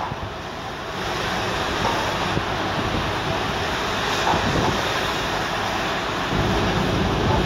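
Wind buffeting the microphone over the steady rush of sea water churned up by a small pilot boat running alongside the ship's hull.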